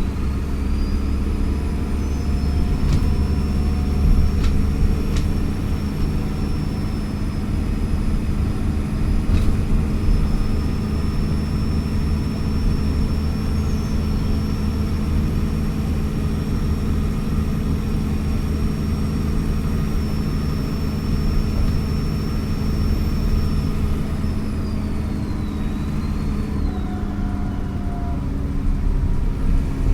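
Dennis Trident Enviro400 double-decker bus engine running steadily under load, with a high turbo whistle that rises at the start, holds, then falls away a little over twenty seconds in as the power comes off. A few short knocks or rattles sound in the first ten seconds.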